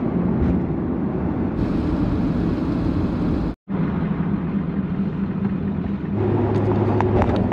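Ford F350 7.3 Powerstroke diesel running and road noise heard from inside the cab while driving on a highway. The sound drops out for a moment about halfway, and a steady low engine drone comes in about six seconds in.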